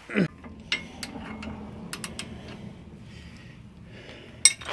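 Scattered metallic clicks and clinks of a wrench and loose metal parts being handled at a shock bolt, a few separate clicks rather than a steady ratchet rhythm, with a sharper click near the end.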